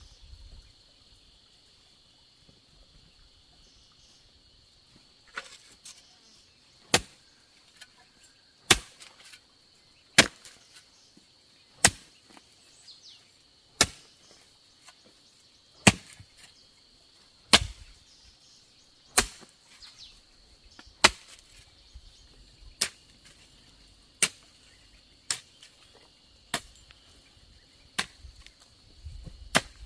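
Chopping into bamboo with a blade: sharp single strikes about every one and a half to two seconds, starting about five seconds in, over a steady drone of insects.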